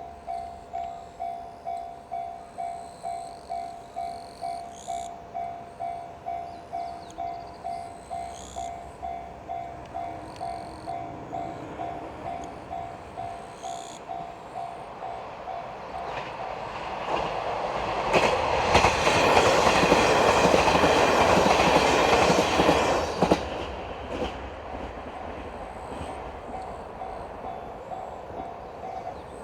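Japanese level-crossing warning bell ringing about twice a second. About 17 seconds in, a train passes over the crossing, loud for about six seconds with its wheels clattering over the rail joints. The bell keeps ringing after the train has passed and stops near the end.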